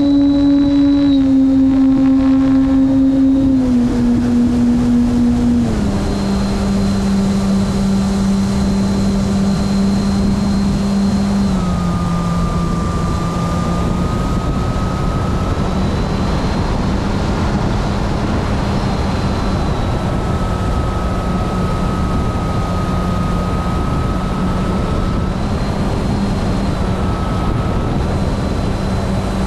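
Radio-controlled model airplane's motor and propeller, heard from a camera on board: a steady drone that steps down in pitch three times in the first six seconds as the throttle is eased back, then holds steady, over a continuous rush of air.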